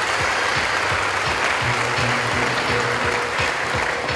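Audience applauding over background music with a steady beat.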